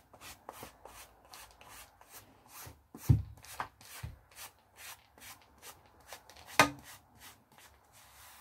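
Bristle fibre brush stroked repeatedly over a cloth lap covering, about two or three quick brushing strokes a second, clearing loose fibre off so it won't tangle in the spinning. Two louder knocks cut in, one about three seconds in and another about two thirds of the way through.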